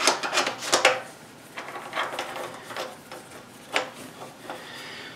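Steel T-nuts sliding and clinking in the T-slots of an old Bridgeport milling machine's cast-iron table, metal on metal. Several sharp clicks and scrapes come in the first second, then a few scattered softer knocks.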